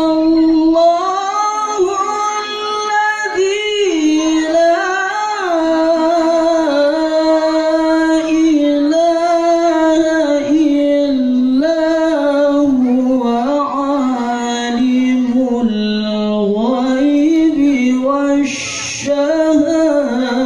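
A man reciting the Quran in the melodic tilawah style, amplified through a microphone: one voice in long, ornamented high phrases. There is a short break with a hiss about two seconds before the end.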